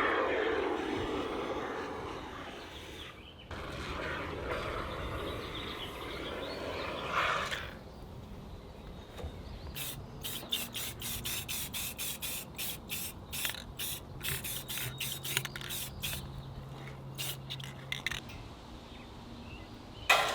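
Can of expanding spray foam hissing out in two long sprays. After it, a run of sharp, irregular clicks, a few a second.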